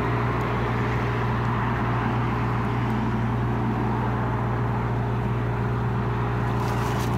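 Semi truck's diesel engine idling, a steady low drone with an even hum.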